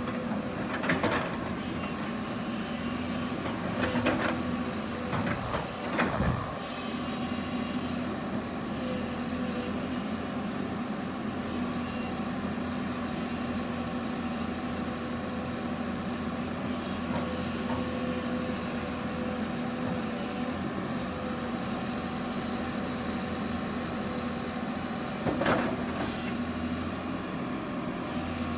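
Hydraulic excavator's diesel engine running steadily under digging load. A few short knocks and scrapes come about a second in, around four and six seconds in, and again near the end.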